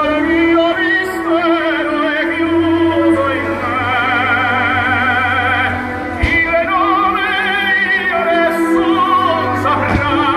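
Music: an operatic voice singing with wide vibrato over sustained orchestral backing, with a couple of short sharp thumps about six seconds in and near the end.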